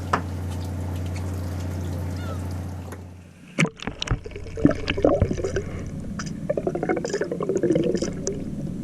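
A steady low machine hum that cuts off about three and a half seconds in, then water splashing and dripping with scattered clicks and knocks as a freshly hooked mitre squid is brought up out of the water.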